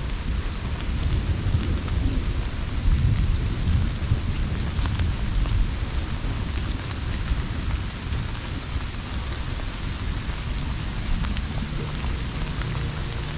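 Steady heavy rain falling, with drops ticking sharply close by, over a low rolling rumble of thunder that swells about three seconds in.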